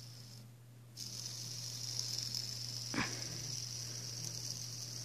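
Fidget spinner's center ball bearing spinning up about a second in, then running with a steady high whir, with one sharp click about three seconds in. The bearing is rattly.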